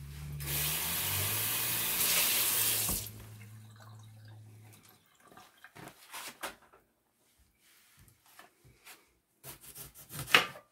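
Kitchen faucet running into the sink for about two and a half seconds, then shut off. After that come scattered quiet taps of a knife slicing bell peppers on a wooden cutting board.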